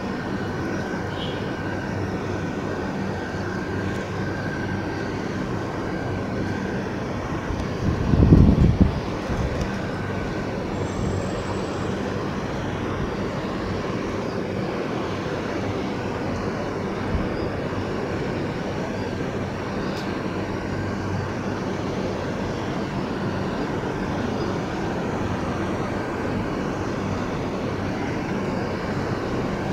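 Steady background rumble with a low hum, and a brief loud low thump about eight seconds in.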